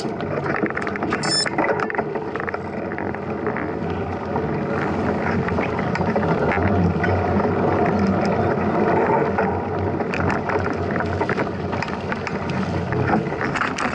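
Mountain bike being ridden over a rough dirt trail: steady tyre noise with many small rattles and clicks from the bike.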